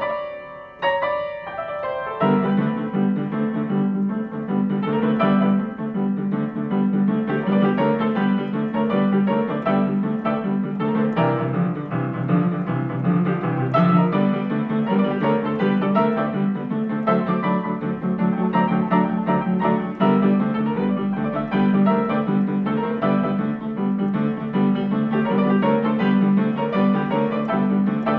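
Upright piano played solo in boogie-woogie style: a steady, evenly repeating left-hand bass figure under right-hand chords and runs. A few separate struck chords open it, and the driving rhythm settles in about two seconds in.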